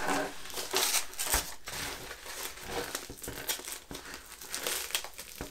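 Fabric helmet cover being pulled and adjusted over a ballistic helmet: irregular rustling and scratching of cloth against the shell.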